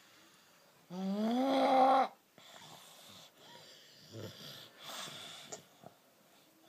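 A baby snoring: one loud, buzzing snore lasting about a second, starting about a second in and rising slightly in pitch, followed by quieter wheezy breaths.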